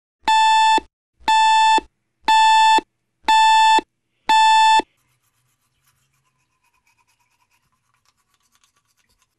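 Digital alarm clock beeping: five loud, even beeps about one a second, each about half a second long, stopping just before five seconds in. Then faint scratching of a toothbrush on teeth.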